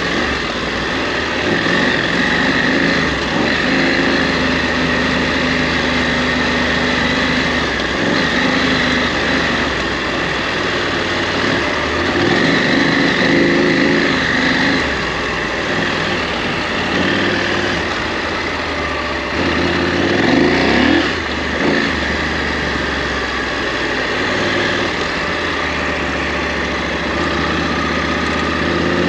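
2021 KTM 890 Adventure R's parallel-twin engine running under riding load, the engine note rising and falling with the throttle, with a quick rev-up about twenty seconds in.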